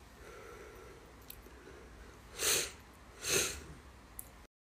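A woman's two short breaths close to the microphone, about a second apart, over faint room noise; then the sound cuts off abruptly.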